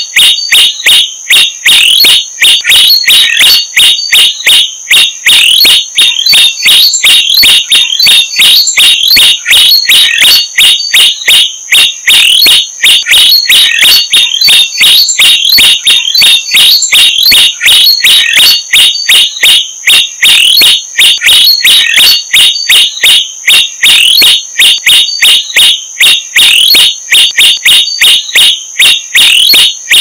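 Common tailorbirds calling at the nest: loud, sharp, short notes repeated fast and without a break, about three a second. A steady high-pitched tone runs underneath.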